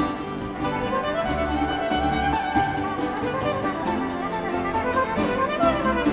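Background music with strings: a violin-like melody over a pulsing bass.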